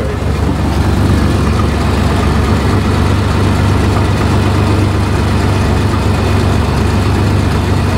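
A 1989 Ford Ranger pickup's engine idling steadily, heard close from underneath the truck.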